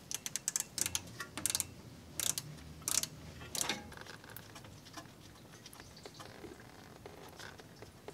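Ratchet on a 17 mm bolt clicking in quick runs while the turbocharger's lower coolant line bolt is loosened, the clicks growing sparse after about four seconds.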